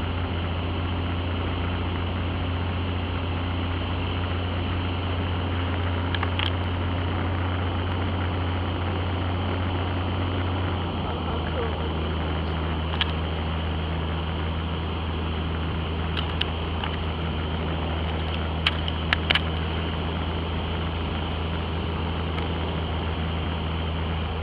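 Steady drone of a light single-engine airplane's engine and propeller heard inside the cabin. About halfway through, the drone shifts slightly lower in pitch, and a few short clicks come in the second half.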